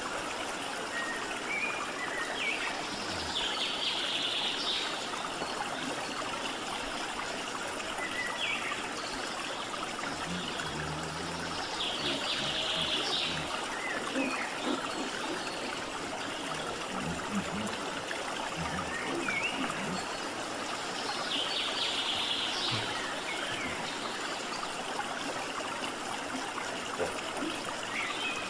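Steady rushing noise of running water. A short high buzz comes three times, roughly nine seconds apart.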